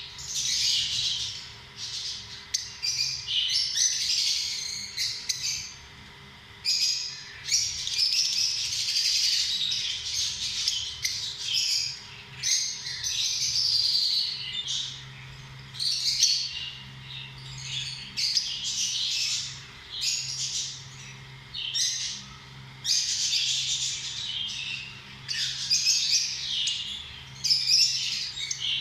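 Lovebirds chattering: rapid, high-pitched chirps and squawks coming in bursts with short pauses between them.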